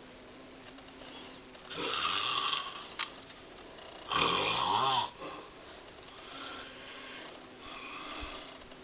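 A sleeping person snoring: two loud snores about two seconds apart, each nearly a second long, with a short sharp click between them and fainter breaths after.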